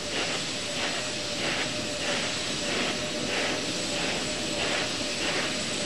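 Steady hiss of background noise with a faint steady hum.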